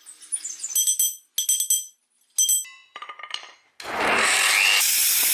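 Music with tambourine-like jingle strikes. About four seconds in, a loud, steady rushing noise starts and holds.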